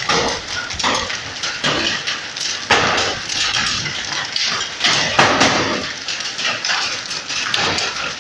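Hailstones falling and striking surfaces in a dense patter of small impacts, with louder surges every second or two.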